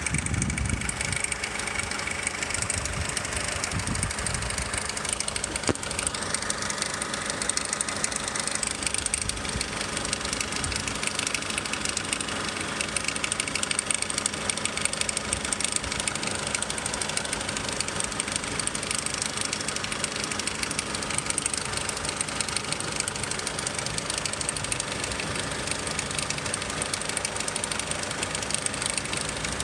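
2002 Nissan X-Trail engine running steadily with a rattle, a noise that comes only after about 20 minutes of driving; the owner wonders whether it is the timing chain.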